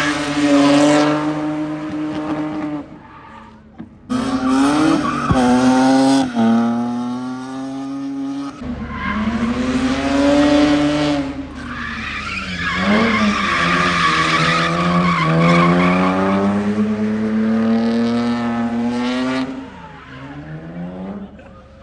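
A drift car's engine revving up and down through drifts, with tyres squealing. It drops off briefly about three seconds in and again near the end.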